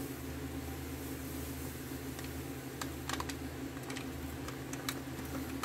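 Scattered light clicks and taps from handling a plastic water bottle and a packet of orange drink powder, mostly in the second half, over a steady low hum.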